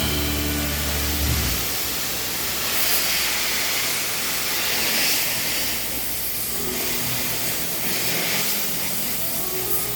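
Steady hiss of a gas torch flame used for welding quartz, swelling and easing slightly.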